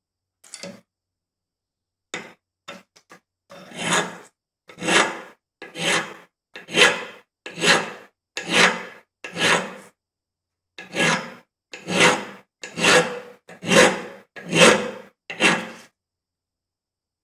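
Flat hand file rasping back and forth across a small rusty metal part of an old gas lighter held in a bench vise. A few light scrapes come first, then about a dozen even strokes, roughly one a second, with a short pause about ten seconds in.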